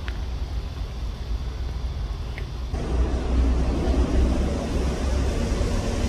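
Steady outdoor background rumble with a hiss over it, growing louder and fuller about three seconds in.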